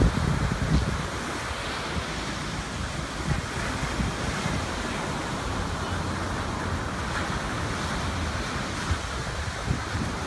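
Sea waves breaking and washing onto the shore, a steady rushing surf, with wind buffeting the microphone in low thumps.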